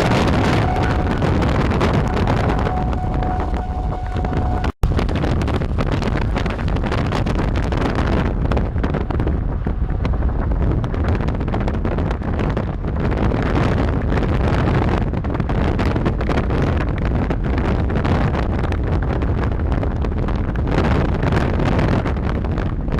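Strong wind rushing over the microphone together with the road noise of a storm-chase truck driving through a severe thunderstorm's rain bands. A faint steady tone is heard for the first few seconds and stops at a brief dropout.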